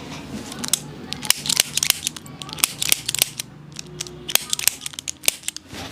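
A rapid, irregular run of sharp clicks and crackles, some twenty in about six seconds, from hands working on a patient lying face down during a chiropractic back treatment.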